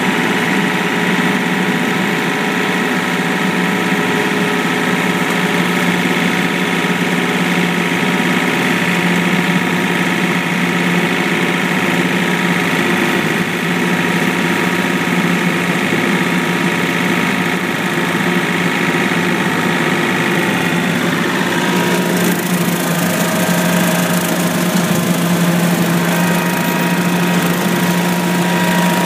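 John Deere compact tractor's diesel engine running steadily under load while driving a Bush Hog rotary cutter through tall, dense grass. About three-quarters of the way through, the sound turns hissier.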